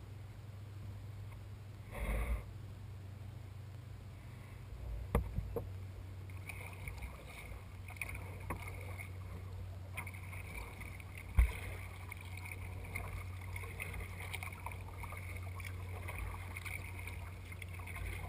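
Kayak being paddled on calm water: the paddle dipping and splashing lightly, with a few short knocks against the hull, the sharpest about 11 seconds in, over a steady low rumble.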